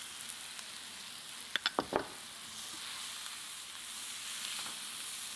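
Chopped onions, carrots, celery and leeks sizzling steadily in butter in a cast-iron skillet while flour is stirred in, with a few quick knocks about a second and a half in.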